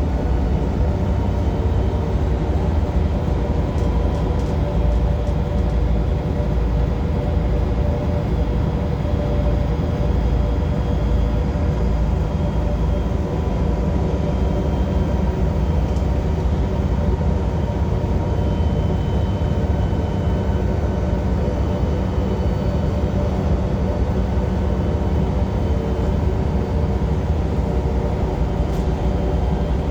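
Transperth bus's engine and drivetrain making a loud, steady low rumbling, heard from inside the bus, with the engine cooling fan not running.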